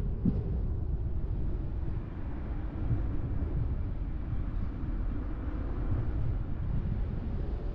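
Steady low rumble of a car on the move, from tyres on the road and the running engine.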